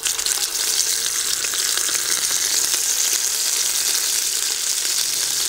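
Chunks of pork neck searing in hot vegetable oil in a cast-iron Dutch oven: a steady, even sizzle.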